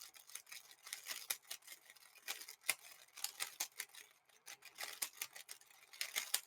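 Rapid, irregular faint clicking of a 3x3 speed cube being turned during a solve, with a short lull a little past halfway.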